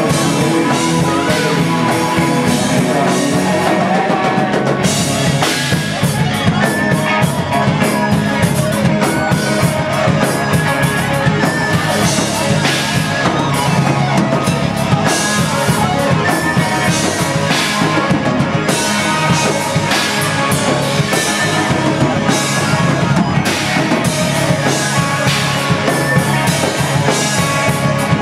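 Rock band playing live and loud: electric guitar, keyboards and a drum kit with busy, steady drumming, with no break.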